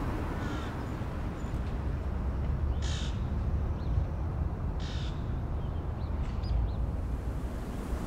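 Quiet city street ambience: a steady low city rumble, with a bird calling twice, about two seconds apart, and a fainter call near the start.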